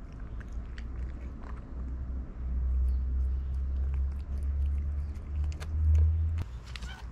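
Tabby cat chewing wet food from a dish right at the microphone: a string of small wet clicks and smacks. Under it a low rumble swells from about two seconds in, peaks, and stops abruptly near the end.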